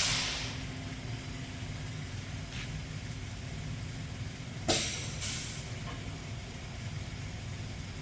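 Pneumatic controls of a CTD CDM300 double-end compound miter saw cycling over a steady machine hum. Air hisses out at the start, and about five seconds in there is a sharp click followed by another second of air hiss.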